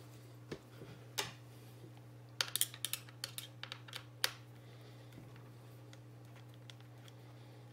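Light clicks and taps of metal hex keys being handled at a plastic key holder: single clicks about half a second and a second in, then a quick cluster of them from about two and a half to four and a half seconds in.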